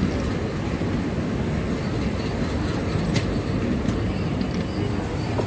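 Two diesel-hauled trains behind ALCo-type diesel locomotives, a WDG-3A and a WDM-3D, running side by side, giving a steady low rumble of engines and wheels on the track. A single faint click comes about three seconds in.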